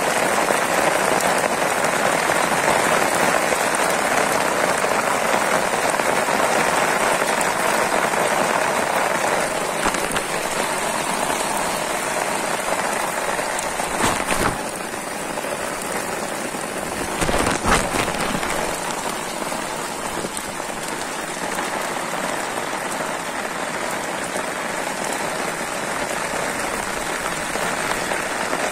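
Heavy rain falling on open floodwater: a steady hiss of drops splashing on the surface that eases slightly after about ten seconds. Two brief thumps come about halfway through.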